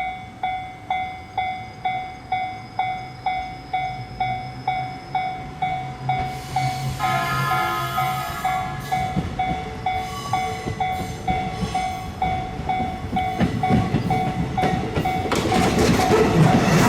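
Japanese level-crossing warning bell ringing a steady electronic ding about twice a second while a train approaches. The train's running noise builds from about seven seconds in and is loudest as it reaches the crossing near the end.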